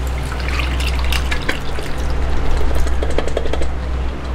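Cooked beef and its broth poured from a bowl into a pan of masala: a continuous splashing pour with the meat chunks plopping and sloshing into the liquid.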